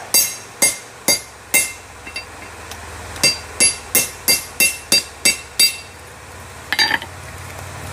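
Hammer blows on a splitting wedge driven into a hot steel railroad spike on an anvil, each strike ringing with a bright metallic tone. A few blows come first, then a steady run of about three a second, a pause, and one last blow near the end.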